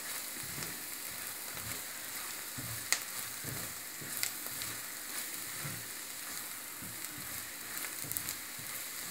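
Sliced onions with chilli powder and tamarind extract sizzling steadily in oil in a pan while being stirred, frying until the chilli loses its raw smell. A few sharp clicks of the spoon against the pan, the loudest about three seconds in and another about four seconds in.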